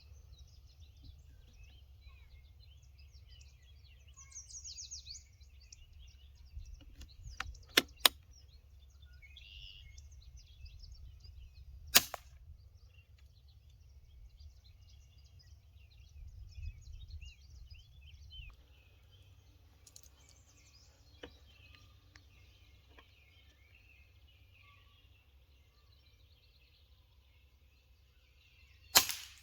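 Pellet air rifle firing: a few sharp cracks, two close together about eight seconds in, another about twelve seconds in and one near the end. Birds chirp throughout over a low rumble.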